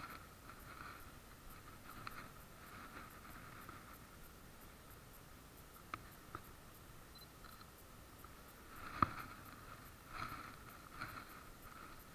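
Faint handling noise on a chest-mounted SJ4000 action camera: a few light clicks and rubs against a low, muffled background. The sharpest click comes about nine seconds in.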